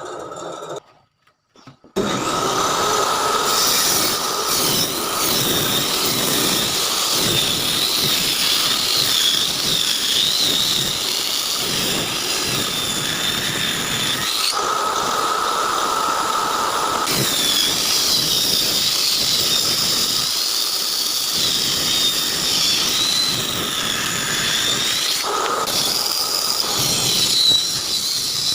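Electric woodworking power tool running continuously on wood, with a high whine that wavers up and down as the cut loads it. It stops briefly and starts again about two seconds in.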